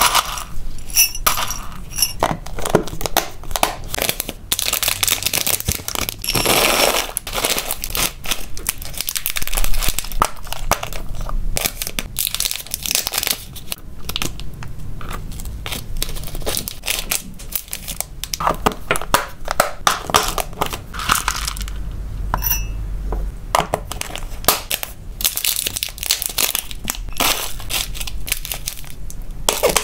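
Dry hamster food being scooped and handled: pellets rattling and clicking against a plastic box and a glass jug, snack pieces picked up with tongs, and a plastic food bag crinkling. Many small clicks and crackles in quick succession.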